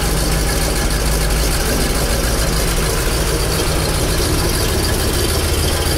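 Exhaust of a 1965 Corvette's 327 cubic-inch, 350 hp small-block V8 idling steadily, heard at the tailpipes.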